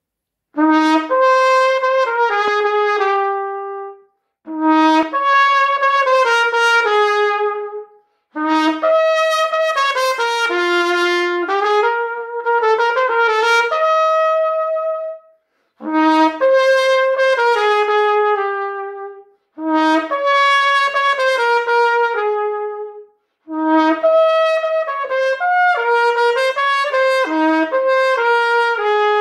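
Unaccompanied B-flat trumpet (B&S Challenger MBX-GL) playing a slow, sustained melody in six phrases, each opening on a low note and stepping upward, with short breathing gaps between them.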